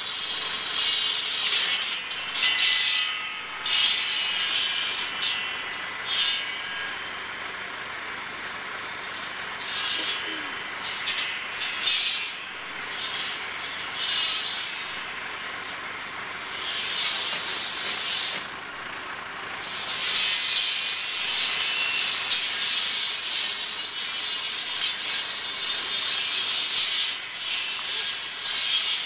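Tractor-mounted single circular saw cutting through hedge stems at their base, in repeated bursts of high-pitched cutting noise every second or two, more continuous near the end, over the steady running of the tractor engine.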